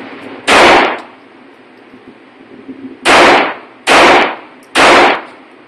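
Four pistol shots: one about half a second in, then three about a second apart.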